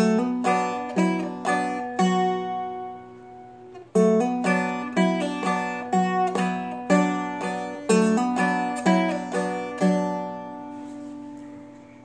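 Seagull Merlin played fingerstyle in a two-finger clawhammer blues pattern: pinched low and high strings and down-strums carrying a melody over a droning B minor chord shape. Two phrases, the second starting about four seconds in; the last notes ring out near the end.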